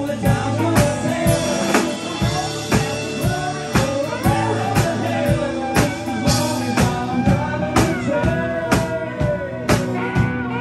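Live rock band playing: drum kit keeping a steady beat of about two hits a second under electric and acoustic guitars.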